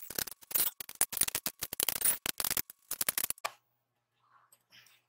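Rapid, irregular metallic clicking and rattling as a steel-plate-mounted worm gear reducer and its bolts are handled and fitted onto a steel frame. It stops about three and a half seconds in.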